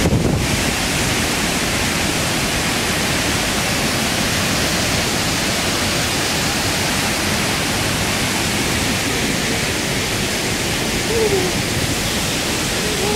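A large waterfall in heavy flow: a steady, dense rush of falling water that never lets up.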